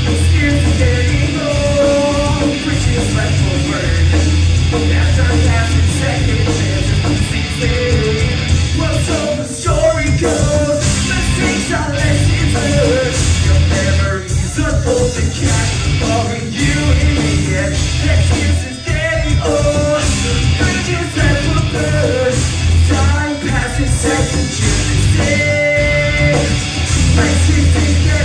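Live rock band playing loudly: a singer over electric guitars, bass guitar and drums, picked up from the audience by a small camcorder's built-in microphone.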